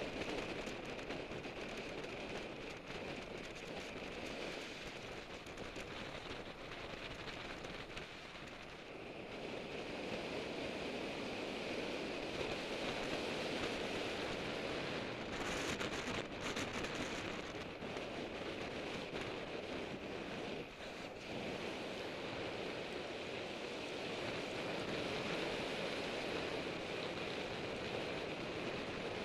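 Steady rush of wind and road noise on a bike-mounted action camera's microphone, from a road bicycle riding at about 30 mph.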